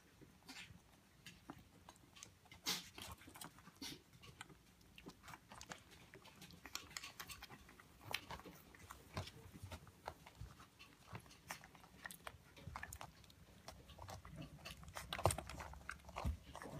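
Bedlington terrier puppies suckling at their mother: faint, irregular small clicks and smacks, getting a little busier near the end.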